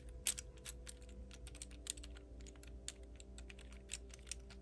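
Hard clear plastic 3D crystal puzzle pieces clicking and tapping as fingers handle them and press one into place on the model. The clicks are light, quick and irregular.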